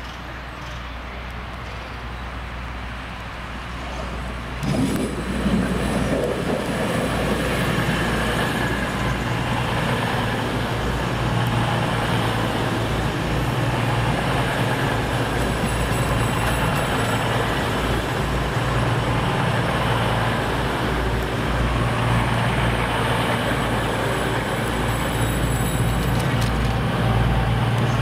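Diesel passenger trains: a Class 222 Meridian diesel multiple unit approaching, then from about five seconds in a loud, steady diesel engine rumble with a low hum as a train runs close by the platform.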